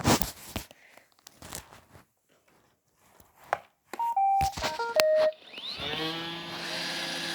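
Roomba robot vacuum: a few clicks, then a short electronic tune of beeps at changing pitches about four seconds in, then its vacuum motor spinning up with a rising whine and settling into a steady hum as it starts cleaning.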